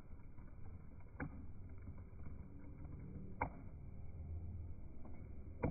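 Slowed-down, pitch-lowered outdoor crowd sound: a low, muffled rumble of voices, broken by three sharp clicks a couple of seconds apart.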